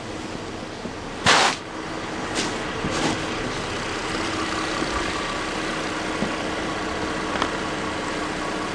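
Nissan Murano's warmed-up 3.5-litre V6 engine idling steadily. A short loud burst of noise about a second in, and a few light clicks.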